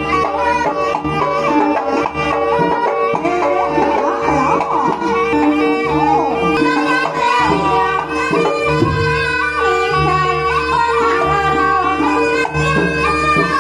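Jaranan gamelan music played over loudspeakers: hand-drum (kendang) patterns with a melody line and a steady held tone over them, without a break.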